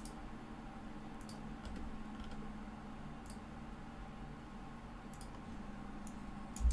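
Sparse, faint clicks of a computer mouse, about nine spread unevenly, over a faint steady hum. A short low bump comes right at the end.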